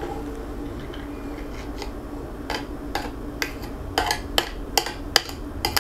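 A bowl of sour cream and egg mixture clinking and tapping against the rim of a stand mixer's steel bowl as it is poured in, a run of light sharp clicks starting about two and a half seconds in, over a steady low hum.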